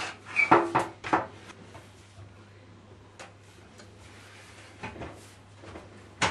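Clicks and knocks of hands working on a washing machine's front panel and wiring connector: a quick cluster in the first second, a few faint ticks after, and one sharp click near the end.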